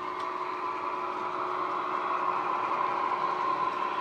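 Sound-fitted OO-gauge Class 68 model locomotive: its LokSound decoder plays a recorded Class 68 diesel engine running, through an EM1 speaker paired with flat bass speakers. The sound is steady and grows slightly louder as the loco approaches.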